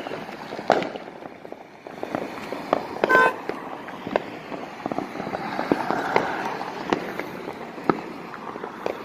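Fireworks going off: a scatter of sharp pops and bangs, near and distant, all through. About three seconds in there is a brief pitched toot, like a horn.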